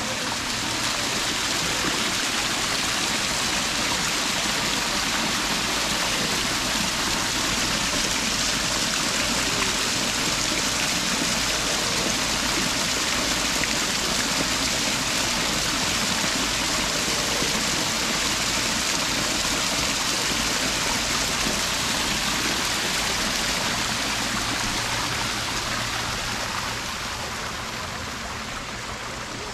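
Waterfall running: a steady rush of falling water that grows somewhat fainter over the last few seconds.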